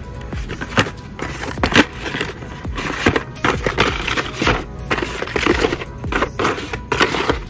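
Blister-packed Hot Wheels cards clacking and rustling as a hand flips through them in a cardboard display: a quick, irregular run of plastic clicks and card scrapes.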